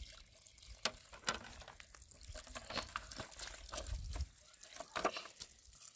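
Water trickling and splashing as small drinking glasses are rinsed and scrubbed on a plastic tray, with scattered light clicks and knocks.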